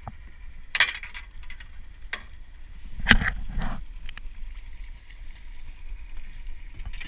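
Splashes and knocks as a landing net is dipped into the lake to scoop up a hooked fish beside the boat, the loudest a little after three seconds in, with wind rumbling on the microphone.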